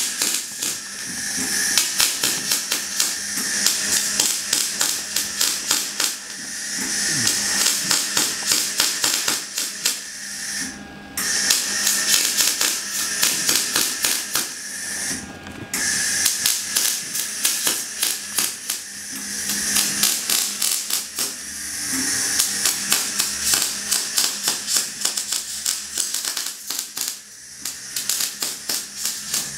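Electric arc welding crackling and hissing on steel, a dense stream of small pops that stops briefly twice.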